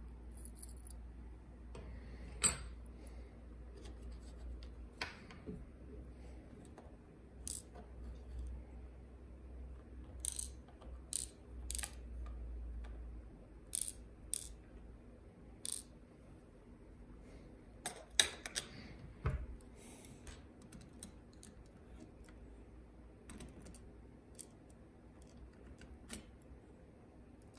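Small scattered clicks and taps of brass padlock parts (the plug, pin tumblers and springs) being handled and set into a pin tray as the lock cylinder is taken apart. The sharpest clicks come about two seconds in and again just past the middle.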